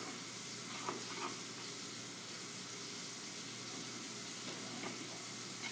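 A steady, even hiss, with a couple of faint short clicks about a second in.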